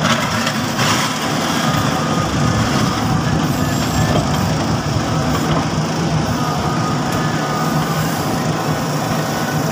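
Case 770FX Plus backhoe loader's BS4 diesel engine running steadily under load as the backhoe arm drags its bucket through loose soil.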